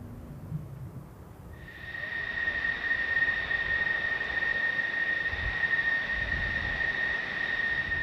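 Fighter jet's turbine engine running as the jet taxis, starting about a second and a half in: a steady high whine over an even rushing noise.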